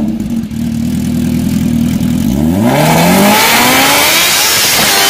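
Kawasaki H2R's supercharged inline-four engine idling steadily, then revved sharply about two seconds in, the pitch climbing fast and the exhaust turning loud and rough as it is held at high revs toward the end.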